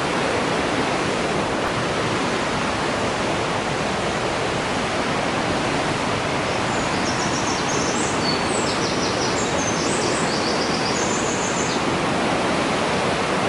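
Mountain river water rushing through a narrow rocky gorge, a loud, steady, even roar of rapids. Short high chirps sound over it about halfway through.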